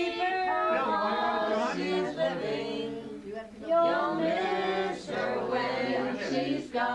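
A group of people singing together without accompaniment, several voices holding long notes with a few short breaks.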